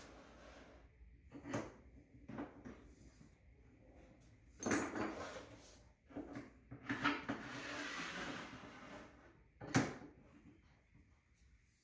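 Handling noises: scattered knocks, two stretches of rubbing or sliding, and one sharp click near the end.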